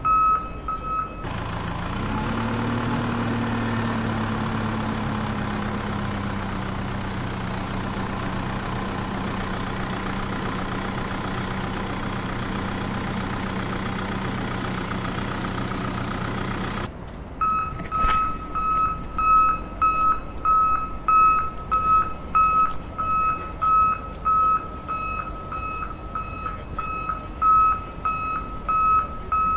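Repeating high electronic beeps like a vehicle reversing alarm from a toy construction vehicle, broken for about fifteen seconds by an engine running, whose pitch rises as it starts and then holds steady before cutting off suddenly; the beeping then resumes.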